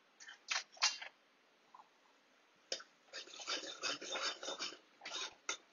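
A steel spoon stirring ridge gourd curry in an aluminium pot: a few clicks in the first second, then about three seconds of scraping and clinking against the pot.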